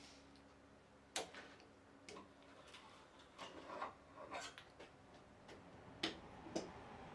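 Irregular light clicks and taps from hand-tool work on wood, sharpest about a second in and twice near the end, over a faint steady hum.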